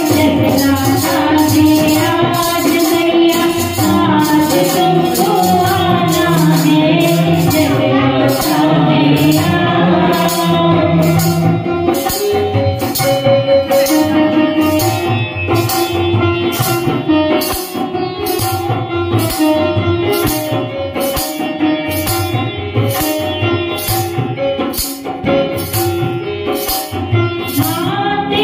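Live Hindu devotional bhajan music: a harmonium melody over a dholak drum, with a steady jingling percussion beat of about two strokes a second.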